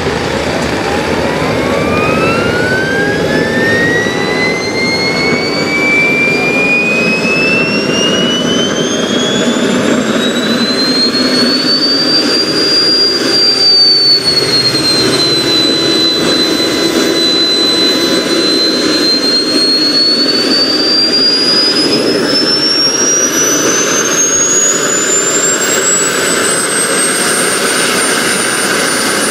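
Kingtech K-80E model jet turbine spooling up: a whine that climbs steadily in pitch, eases off slightly about halfway, holds, then climbs higher again toward the end, over a steady rushing noise.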